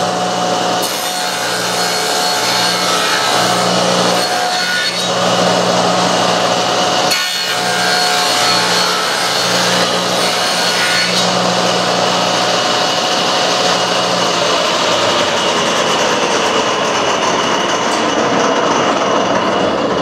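Table saw running and ripping a strip of wood along the fence, cutting the profile of toy crawler track. About 14 s in the motor's hum stops and a falling whine follows as the blade winds down, under a steady rushing noise.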